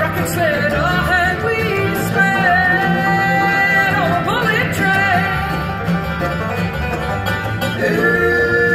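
Live acoustic bluegrass band playing, with banjo, mandolin, acoustic guitar and upright bass under a woman's lead singing of wavering, held notes.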